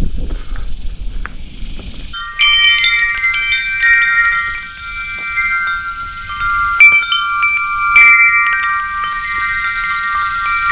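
Low wind and trail rumble for about two seconds, then cut off abruptly by chimes: several ringing notes struck over and over and left to ring.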